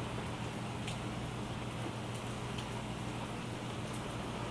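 Steady rain falling, with a few individual drops ticking sharper, about a second in and again near the middle.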